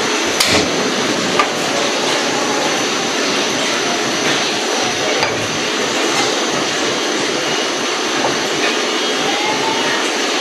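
Besan batter dumplings deep-frying in hot oil in a karahi: a steady sizzling as more batter is dropped in, with a short knock about half a second in.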